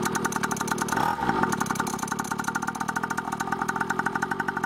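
Small 49cc two-stroke engine of a pocket dirt bike, just pull-started, running steadily at idle with its idle speed freshly turned down at the carburettor's idle screw.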